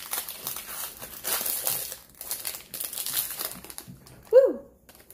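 Foil wrapper of a Pokémon TCG booster pack crinkling and tearing as it is handled and opened, for about three seconds. About four seconds in, a single short, loud cry that falls in pitch.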